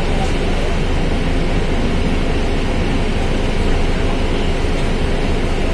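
Volkswagen Volksbus 17.230 OD bus's diesel engine and drivetrain running steadily, with a deep, even rumble.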